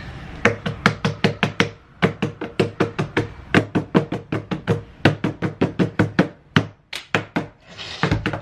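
Two people's hands slapping and tapping a wooden tabletop in a quick rhythmic hand-game pattern. The strikes come in runs with a couple of short breaks.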